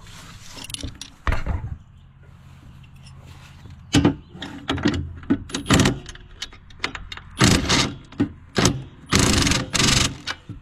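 Impact wrench hammering in two bursts, a short one and then one of about a second, on a garden tractor's seat bolt that does not come loose. Metal knocks and clicks of tool handling come between the bursts.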